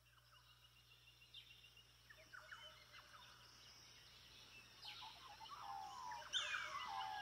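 Birdsong: many short chirps and falling whistles from several birds, faint at first and growing louder toward the end, over a low steady hum.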